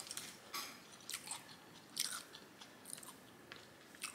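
Close-miked chewing and mouth smacking on a mouthful of Singapore noodles mixed with fried rice: soft, irregular smacks about every half second.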